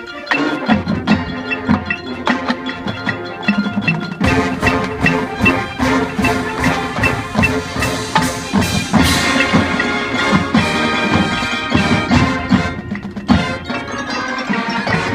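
Youth marching band playing: sustained ensemble chords over a dense run of percussion strikes, with mallet percussion among them. The band gets fuller and louder about four seconds in.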